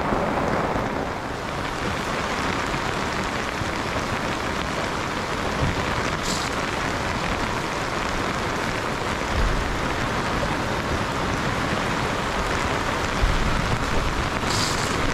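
Steady rain falling on a boat's canopy and the sea around it, with a couple of dull low thumps. Near the end, water runs off the canopy edge with a brief splash.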